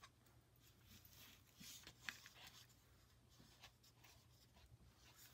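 Near silence with faint rustling and light clicks from a dried gourd and a woodburning iron being handled, with one sharper click just after two seconds.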